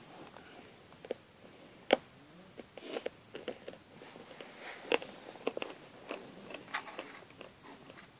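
Small plastic toy figure and accessories handled and set down on a crinkly plastic packet: scattered clicks, taps and crinkles, with the sharpest taps about two and five seconds in.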